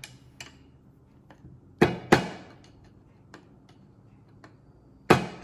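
Hammer striking metal on the crankshaft of a Kohler K301 single-cylinder engine, working the crankshaft key out. Two sharp strikes come about two seconds in and a quick run of strikes starts near the end, with small clicks of handling in between.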